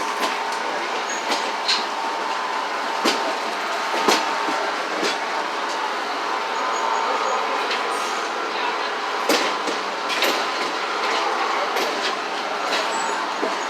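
Steady running noise of a moving passenger train heard from inside a coach: the car rattling over the track, with occasional sharp clicks and knocks.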